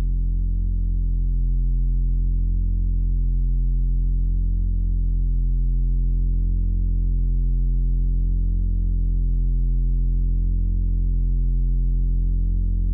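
Deep, steady drone from Moog analog synthesizers, a low held tone with stacked overtones that wavers slowly about every two seconds.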